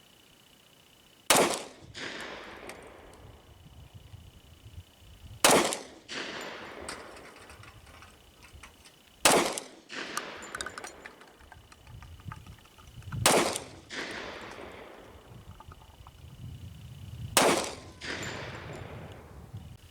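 Five single shots from a Glock 21 .45 ACP pistol firing 230-grain hollow points, spaced about four seconds apart. Each shot is a sharp crack with a fading tail and a fainter second sound about half a second after it.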